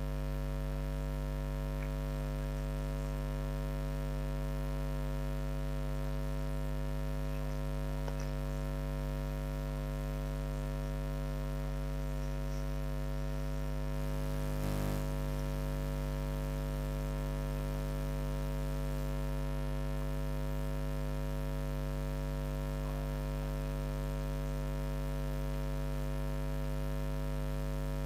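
Steady electrical mains hum with a stack of overtones, unchanging throughout. About fifteen seconds in, a brief noisy burst sounds over it.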